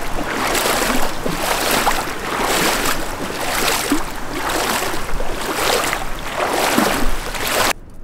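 Hiking boots wading through a shallow, rocky creek, each stride a splash, a little under one a second, over the steady rush of the stream. The sound cuts off suddenly near the end.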